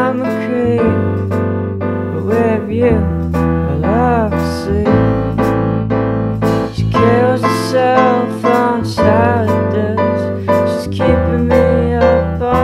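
Music from a song's instrumental stretch: piano chords struck in a steady pulse over a deep held bass, with gliding melody lines above.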